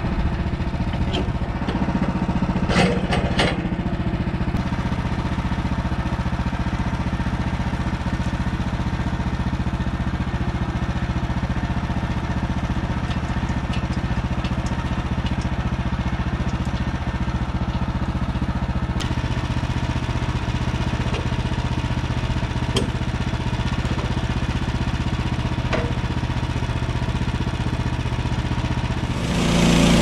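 Woodland Mills HM130max sawmill's gas engine running steadily, with a few sharp clanks. Near the end it jumps louder as the blade cuts through the log.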